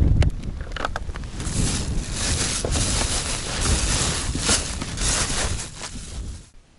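Rustling of a plastic bag and cloth, with bumps of handling, as a fish is laid into a plastic fishing box. It stops suddenly near the end.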